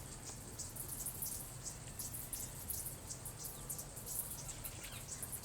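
Insects chirping in a high-pitched, rapid pulsing of several chirps a second, over a faint low rumble.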